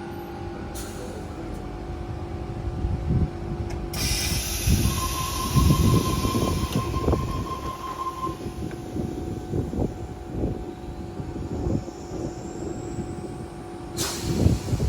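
Sydney Trains electric train running through the station, with a steady hum and uneven low thumps from the wheels. A hiss starts suddenly about four seconds in, a brief steady tone sounds around the middle, and there is a loud burst near the end.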